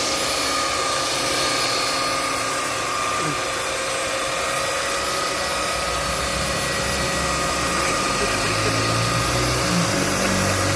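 Maktec electric sander running steadily on wood, an even whirring hiss with a steady motor whine, with a lower rumble coming in about halfway through.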